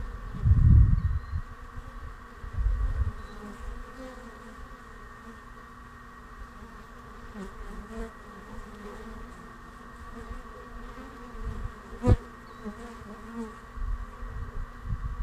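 A honey bee swarm clustered on a tree branch, with many bees buzzing in a steady hum. Low rumbles come and go near the start and again near the end, and there is one sharp click about twelve seconds in.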